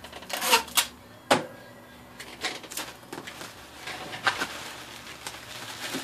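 Bubble wrap rustling and crinkling as it is handled, with irregular sharp crackles, the loudest three within the first second and a half.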